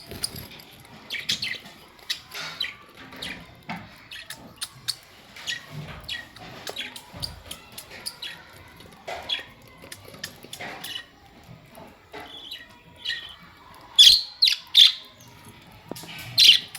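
Budgerigars chirping and chattering in a run of short calls, with a few louder, sharper calls near the end.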